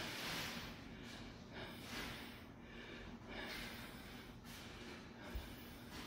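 A person breathing heavily close to the microphone, quick breaths about one a second.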